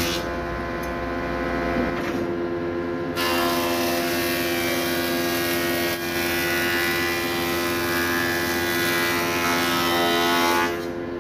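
A thickness planer runs with a steady hum. From about three seconds in, a board feeds through and the cutterhead planes it, adding a rushing cutting noise that stops shortly before the end.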